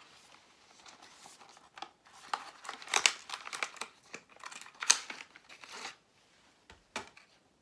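Packaging crinkling and tearing as it is handled and pulled open, in a run of crackly bursts, followed by a single sharp click near the end.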